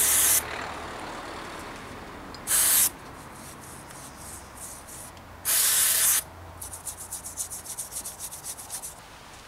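Three short, loud bursts of hissing spray, then quick rubbing or scrubbing strokes at about eight a second for a couple of seconds, while the freshly tapped threads of a bicycle's bottom bracket shell are cleaned.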